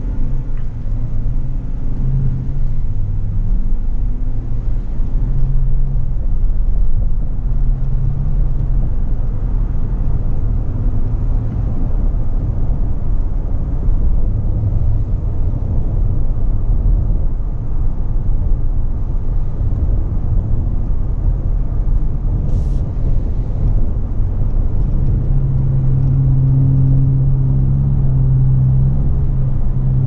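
Cabin sound of a 2021 Cadillac Escalade ESV accelerating from a crawl to about 40 mph and cruising: a steady low engine and road rumble, its engine tones shifting in pitch as it speeds up.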